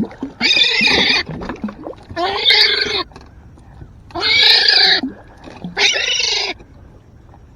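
A hooked gull squawking loudly four times in distress, harsh calls each under a second long, while it is held to have a fishing lure removed.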